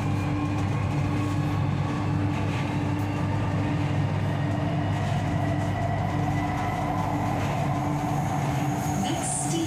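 Metro train running between stations, heard from inside the carriage: a steady low rumble and hum of the motors and wheels on the track.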